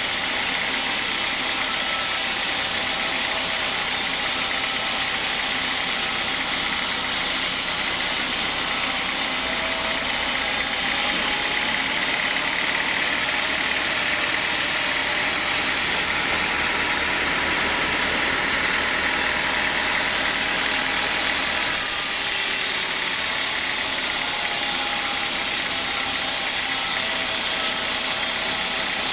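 Sawmill machinery running steadily with a constant dense mechanical hiss. A deeper low rumble joins in the middle for about twelve seconds.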